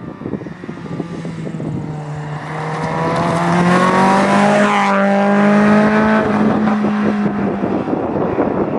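Renault Clio rally car accelerating hard towards the microphone, its engine note climbing steadily. It passes close about five seconds in, where the pitch bends as it goes by, then it carries on at full power and backs off about seven seconds in as it pulls away.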